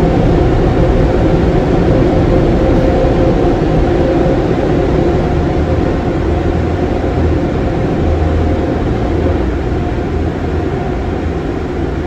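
Steady rumble of a car being driven: engine and road noise.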